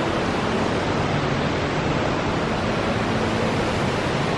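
Steady rushing of water from an indoor rock-grotto waterfall spilling into a fountain pool.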